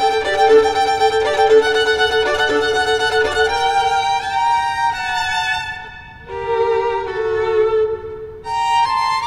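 Solo violin playing a slow melody of long, held notes with vibrato, the notes swelling and fading, with a short quieter gap about six seconds in.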